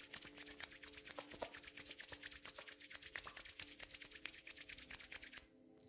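Palms rubbed briskly together, a fast even swishing of about eight strokes a second, which stops near the end.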